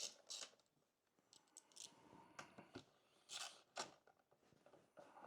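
Faint, scattered clicks and scrapes of a screwdriver turning small screws into a Homelite Super 2 SL chainsaw's housing, with a couple of slightly louder clicks a little past halfway.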